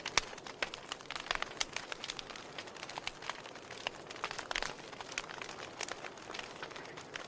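Wood fire burning, with irregular crackles and sharp pops over a steady hiss.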